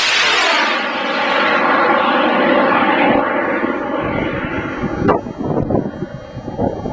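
Amateur rocket motor firing at liftoff: a loud sudden start, then a rushing roar whose tone falls in pitch as the rocket climbs away, fading over about four seconds. Wind buffets the microphone afterwards.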